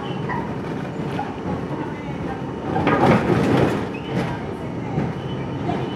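R42 subway train running on an elevated steel structure, wheels clattering over rail joints and switches as it rounds a curve. A louder burst of clatter and rumble comes about three seconds in.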